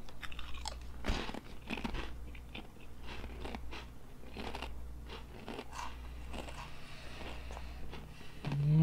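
Two people biting into and chewing Zapp's kettle-style potato chips: crisp crunches, thick and frequent for the first few seconds, then lighter, sparser chewing.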